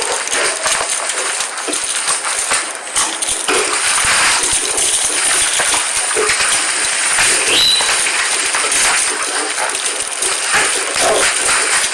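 Plastic mailer bag being cut and torn open, its plastic crinkling and rustling loudly and continuously, with many small crackles as it is handled.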